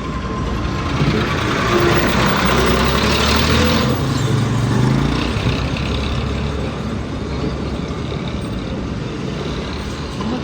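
A motor vehicle's engine runs steadily with a low rumble. It swells louder with a rushing noise between about one and five seconds in.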